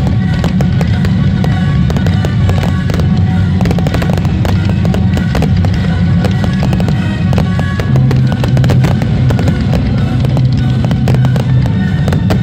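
Fireworks display: a rapid, continuous stream of bangs and crackles from bursting shells and ground fountains, over loud music with a strong low bass.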